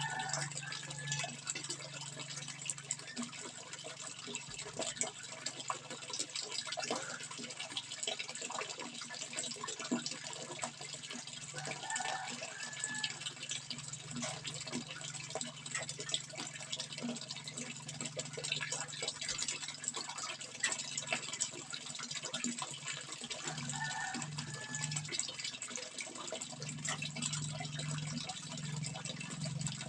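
Water flowing steadily, with a dense patter of small splashes and an occasional short gurgle.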